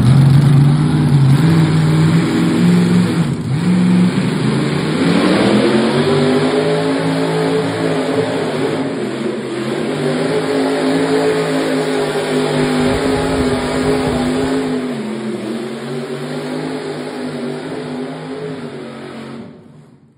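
Mini mod pulling tractor's engine running hard during a pull, its note climbing about four to six seconds in and holding high, then dropping about fifteen seconds in and fading out near the end.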